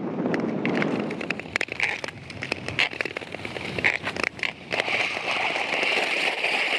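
Ice skate blades gliding and scraping over natural lake ice, with many sharp crackling clicks. A hissing scrape grows louder about two-thirds of the way through.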